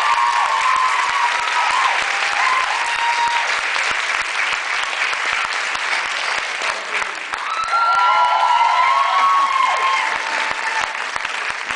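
Audience applauding, with the clapping fading slightly near the end. Voices whoop and call out over the clapping about two-thirds of the way through.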